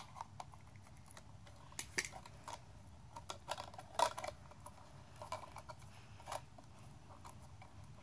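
Scattered light clicks, taps and scrapes of a hand tool and fingers working the cable and wires in a plastic electrical box as the cable sheathing is cut back, the sharpest ticks about two and four seconds in.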